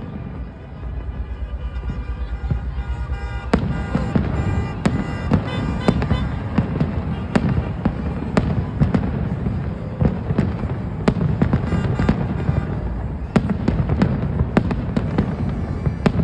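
Aerial fireworks display going off: a fast fluttering run of bursts builds up, then about three and a half seconds in it becomes a dense barrage of booms and crackles, several bangs a second.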